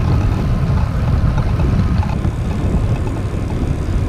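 Wind buffeting the microphone of a bicycle-mounted camera while riding, a steady low rumble.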